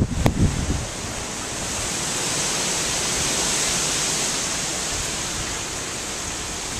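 Hurricane wind and driving rain making a steady rushing hiss that swells and then eases off. Wind buffets the microphone in the first second, with a sharp click just after the start.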